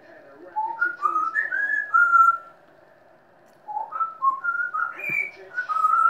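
Pet parrot whistling short notes that step up and down in pitch, in two bursts with a brief pause between them.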